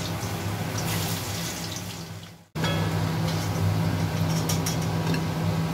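Halved potatoes frying in hot oil in an aluminium kadai, a steady sizzle with small crackles over a low hum. The sound breaks off abruptly about two and a half seconds in and comes straight back.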